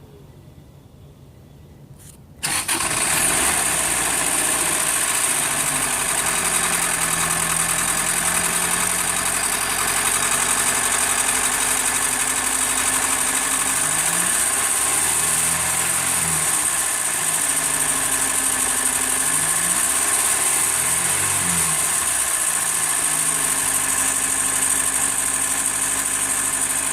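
1991 Acura Integra's 1.8-litre four-cylinder engine starting about two seconds in, then running with a bad knock. Its note rises and falls twice in the middle. The knock is the sign of internal engine damage, which the owner suspects came from turning the crank over too many times during a timing belt change.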